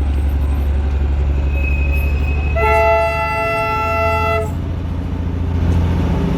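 Darjeeling Himalayan Railway toy train sounding its horn once, a loud call of about two seconds, over a steady low rumble.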